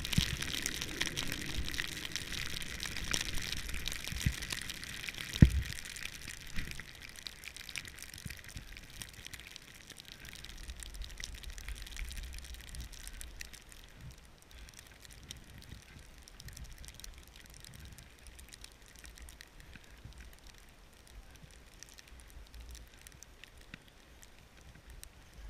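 Snowboard hissing as it slides through fresh powder snow. The hiss is strongest at first and fades after about six seconds, leaving a faint low rumble. One sharp thump comes about five and a half seconds in.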